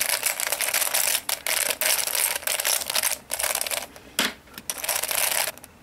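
Square-1 puzzle's plastic layers being turned and sliced in quick succession through a permutation algorithm: a dense run of clicking and rattling broken by brief pauses, dying away near the end.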